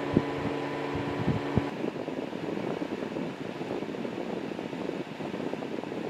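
Small AC Infinity fan running, blowing air through the fins of an aluminium transmission-cooler radiator with a steady, even rush of air. A hum and a few clicks sound over it for the first second and a half, then stop.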